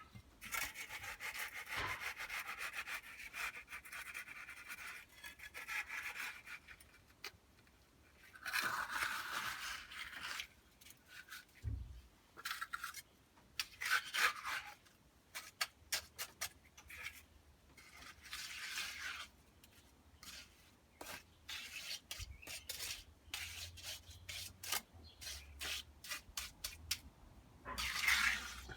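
A hand tool scraping and dragging through wet concrete mix as it is spread, in irregular strokes with short pauses between them.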